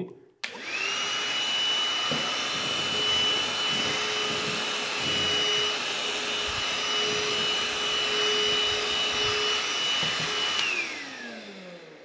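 Einhell TE-VC 18 18-volt cordless handheld vacuum switched on, running with a steady high whine and a rush of air while sucking up coarse eco cat litter, a bit loud. About ten and a half seconds in it is switched off and the motor winds down with a falling whine.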